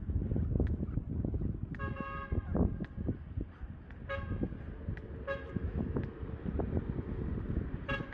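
A vehicle horn beeping four short times over several seconds, the first beep the longest, over a steady low street rumble.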